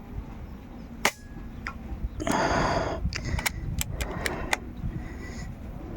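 A single sharp crack about a second in, typical of an air-rifle shot. About a second later comes a short noisy rustle, then a quick run of sharp clicks.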